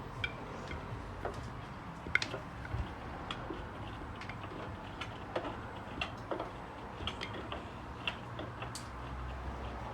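Indesit washing machine draining: the drain pump runs with a steady low hum while irregular sharp clicks, about two a second, tick over it.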